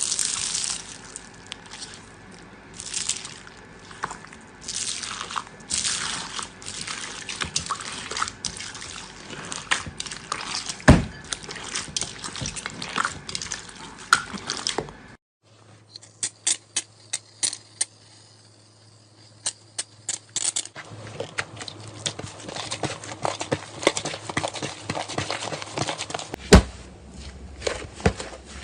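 Slime being squeezed and worked by hand, with wet squelches and sticky pops. About fifteen seconds in, it cuts to another batch of slime making rapid crisp clicks and pops.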